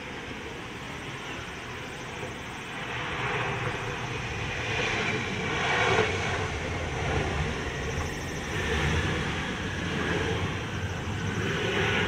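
Jet engines of a J-AIR Embraer regional jet rolling out on the runway just after touchdown: a rushing jet noise with a faint whine, growing louder from about three seconds in to its loudest near six seconds as the jet passes closest.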